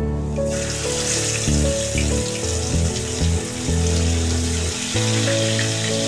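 Background music with a steady melody, joined about half a second in by a steady hiss.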